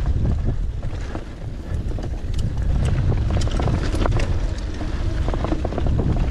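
Wind buffeting the microphone over the low rumble of a Canyon mountain bike rolling along a dirt trail, with scattered sharp clicks and rattles from the bike and the ground.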